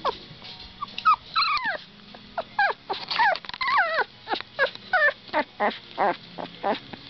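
Two-week-old puppies whimpering and yelping: a quick run of short, high-pitched cries, each falling in pitch, about three a second, starting about a second in.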